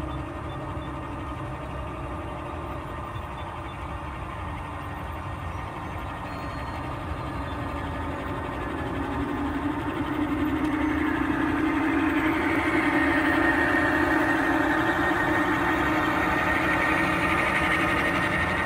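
Garden-railway model diesel locomotives running past with a long train, a steady mechanical hum from motors and wheels on the rails. It grows louder about ten seconds in as the lead units come close and pass.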